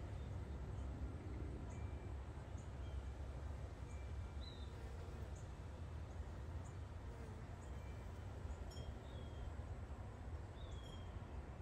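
Outdoor ambience: a steady low rumble underneath, with faint short bird chirps scattered through, several of them sliding down in pitch.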